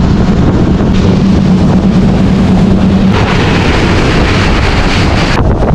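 Motorboat running at speed: a steady low engine hum under loud wind noise on the microphone. About three seconds in, the hissing rush of water along the hull grows louder, and near the end wind gusts buffet the microphone.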